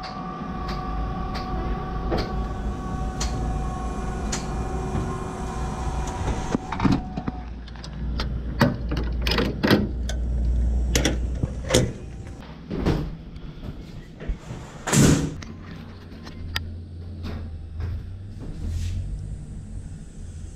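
Metal clanks and knocks in a truck's cargo box as the pallet load is secured with a cargo bar and ratchet straps in the wall tracks, over a low steady rumble. A whine that falls slightly in pitch runs for the first several seconds, then stops. The loudest bang comes about three quarters of the way in.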